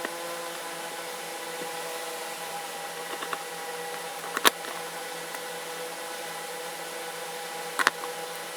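A few sharp clicks of small hand tools being handled, a faint one a little past three seconds in, the loudest about halfway through and a quick double click near the end, over a steady mechanical hum.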